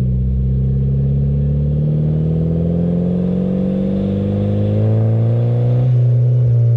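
Nissan Juke Nismo RS's turbocharged 1.6-litre four-cylinder breathing through an Injen 3-inch aftermarket exhaust, accelerating on the road. The note rises steadily in pitch, with a break about six seconds in.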